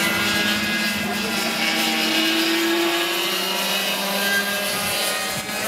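Racing go-kart engines running at high revs as karts pass on the circuit, a steady drone of more than one engine. One engine's pitch rises about two seconds in and then eases off.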